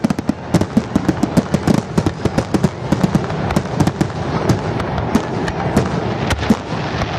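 Fireworks going off in a dense barrage: many sharp bangs and crackling pops per second, overlapping over a continuous rumble.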